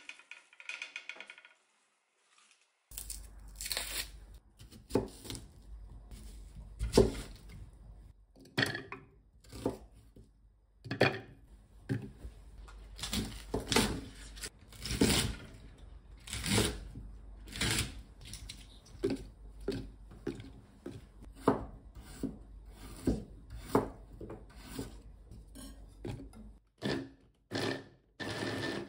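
Kitchen knife cutting leeks on a wooden cutting board: a run of sharp, irregular cuts, about one every half second to a second.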